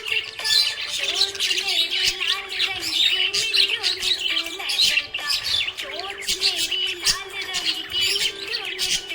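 Budgerigars chirping in a rapid, continuous stream of high tweets and squawks, over background music with a sustained melody.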